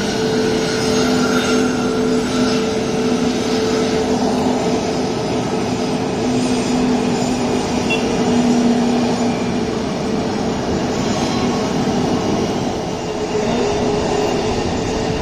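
Jet airliner engines running: a loud, even rush with two steady low hums underneath.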